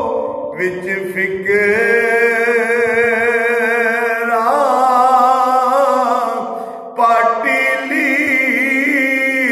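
A man singing a devotional kalam in a solo voice, drawing out long held notes with a wavering vibrato, with a brief breath and a new phrase about seven seconds in.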